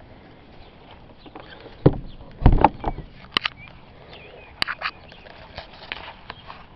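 Scattered knocks and clicks: a cluster of heavy thuds about two to three seconds in, then a few single sharp clicks.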